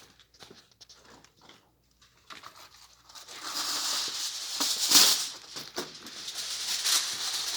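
Aluminium foil being handled and crinkled, a papery rustling crackle that starts about three seconds in and is loudest about five seconds in, after a few faint clicks.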